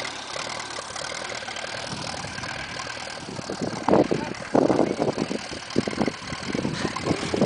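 Small grey vintage tractor's engine running steadily, with a run of louder, uneven bursts of noise over it in the second half.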